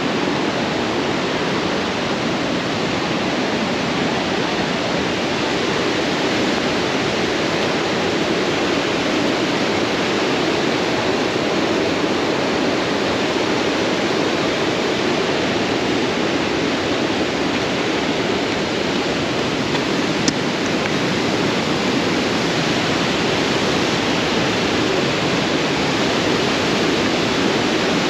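Waterfall heard close by: a loud, steady, even rush of falling water, with a single faint click about twenty seconds in.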